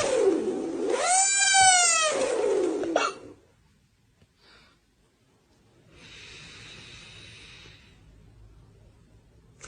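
A sleeping man snoring with his mouth taped shut: a loud, high-pitched wailing squeal that bends up and down in pitch and stops about three seconds in. After a pause comes a quieter breathing hiss of about two seconds, and the squeal starts again at the very end.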